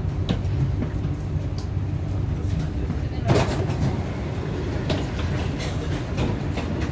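Steady low hum inside a Dubai Metro train car standing at a station, with scattered clicks and one louder knock about three seconds in.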